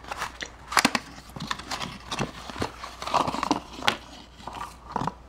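Small cardboard box being opened by hand and a plastic cylinder puzzle and paper leaflet pulled out: cardboard and paper rustling with scattered clicks and knocks, the sharpest about a second in.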